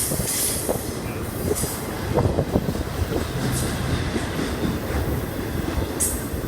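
A train rolling past close by: a steady rumble of steel wheels on the rails, with scattered knocks and a few brief high squeals from the wheels.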